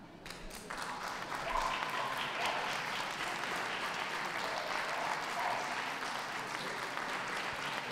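Audience applauding steadily, swelling up over the first second.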